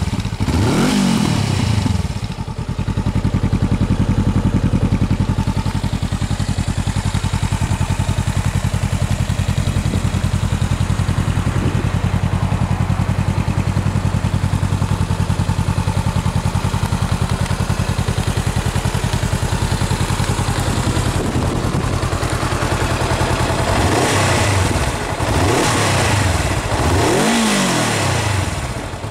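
Honda CBR400R's parallel-twin engine through a BMS-R aftermarket silencer. It gets a quick throttle blip about a second in, then idles steadily, then gets a few sharp throttle blips near the end.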